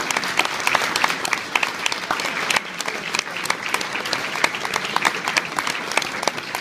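A room full of guests applauding, many hands clapping at once in a dense, steady patter.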